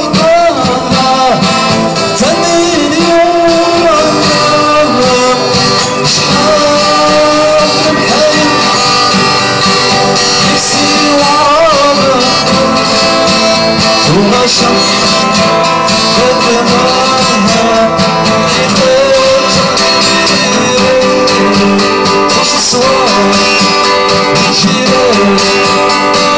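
A small live band playing: acoustic guitars strummed and picked while a man sings a gliding melody, loud and amplified through a PA.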